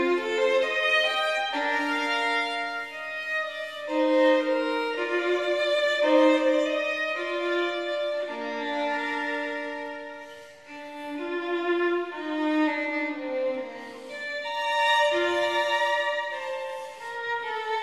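Background music: a melody of long, held notes on a violin, moving from note to note.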